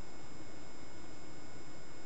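Steady hiss from a SpyPoint trail camera's microphone, with several faint, steady electronic whining tones from the camera's own circuitry; no distinct sound events.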